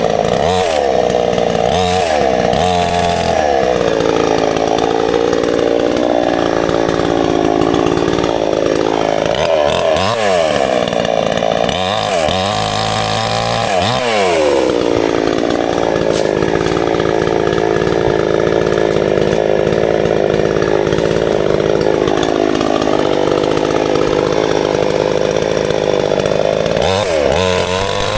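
New XIAOT chainsaw running loud, revved up and down in short blips near the start, around halfway and near the end, and held at steady high speed in the long stretches between.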